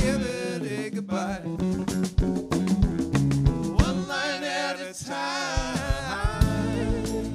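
Live rock band playing: electric guitars, electric bass and drum kit, with a male lead vocal.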